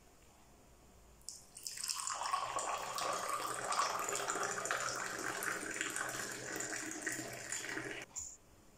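Tea poured from a silver Moroccan teapot held high into a small glass: a brief click about a second in, then a steady splashing stream that starts about two seconds in and stops sharply shortly before the end.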